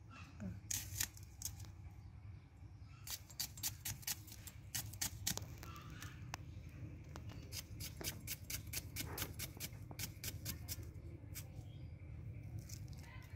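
Dry, papery garlic skins crackling as cloves are peeled by hand, in irregular runs of small sharp clicks.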